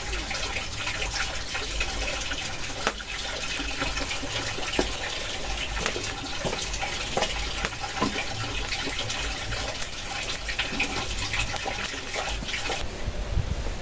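Steady rush of water with many small clicks and taps through it. About a second before the end the hiss thins and a low wind rumble on the microphone takes over.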